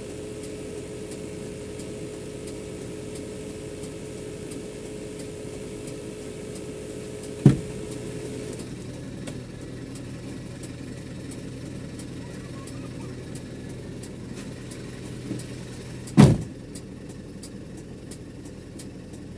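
Hydraulic excavator's diesel engine idling steadily, with a steady higher whine that stops a little past halfway. Two sharp knocks, about seven and sixteen seconds in, stand out as the loudest sounds.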